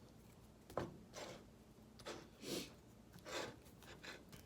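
Quiet eating sounds from fried chicken being eaten with chopsticks: a sharp click about a second in, then a few soft chewing and mouth noises.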